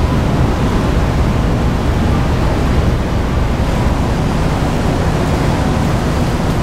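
Steady low rumble of a car ferry's engines and machinery, heard from the open deck with wind on the microphone.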